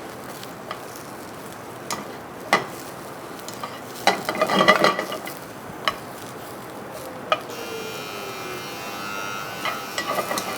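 Sliced chestnut mushrooms sizzling in hot oil in a non-stick wok-type pan, stirred with a wooden spoon, with scattered knocks of the spoon against the pan and a busier spell of stirring about four seconds in.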